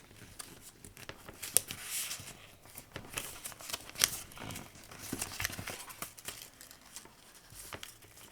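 Paper rustling and crinkling as it is handled and pressed into place, with scattered sharp light clicks and taps, loudest about one and a half and four seconds in.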